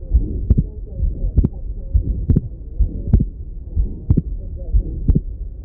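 Heart sounds from an auscultation recording: a steady lub-dub about once a second, with the second heart sound split into two close components on every beat, more distinct on some beats than others. This is wide splitting of the second heart sound, the sign of delayed right-ventricular emptying and late closure of the pulmonary valve.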